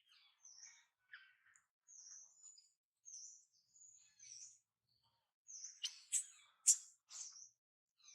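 A series of short, high-pitched animal chirps and squeaks, spaced apart, growing louder and sharper in the second half.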